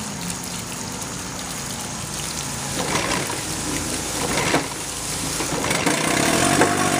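Force/Chrysler-built 9.9 hp two-stroke twin outboard running in a water-filled test tank, its propeller churning the water into a steady splashing wash over the engine's low hum, with a newly installed water pump impeller. It gets louder about six seconds in.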